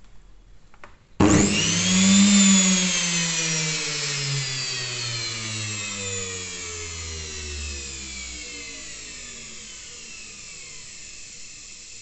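Welling front-load washing machine universal motor, run bare on the bench after its jumper was moved for anticlockwise rotation: it starts suddenly about a second in and whines up to speed, then the whine falls steadily and fades as the motor slows down, over a rushing hiss.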